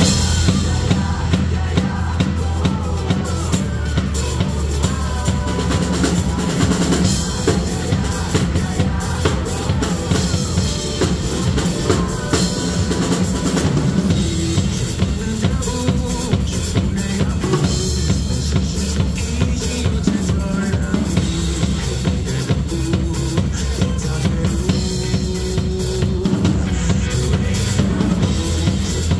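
Acoustic drum kit played live at a driving rock tempo, with kick drum, snare and cymbals, over a pop-rock backing track from a PA speaker with a sustained bass line.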